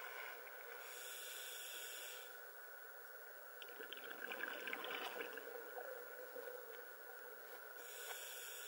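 A scuba diver breathing through a regulator, heard underwater: an inhaled hiss about a second in, a louder bubbling rush of exhaled air in the middle, and another inhaled hiss near the end, over a steady faint hiss.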